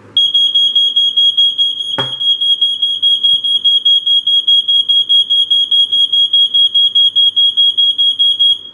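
Wake 'N Warn 05-51-03 smoke alarm's piezo horn going off in response to aerosol test smoke: a loud, high-pitched tone pulsing in rapid, even beeps that stops shortly before the end. A single sharp click sounds about two seconds in.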